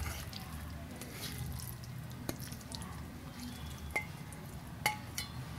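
Raw boneless chicken pieces handled by hand and dropped into a bowl: soft wet squishing, with a few light clicks, two of them short clinks of the bowl about four and five seconds in.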